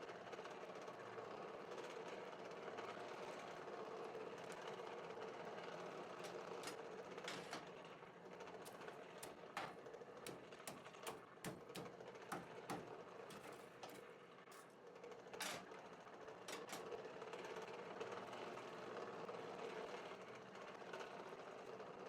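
Steady, faint mechanical hum, with scattered light clicks and taps through the middle.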